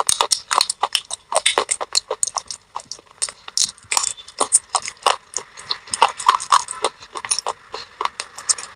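Close-miked mouth crunching and chewing of thin baked-clay pot pieces coated in wet clay paste: rapid, irregular sharp crackles, several a second.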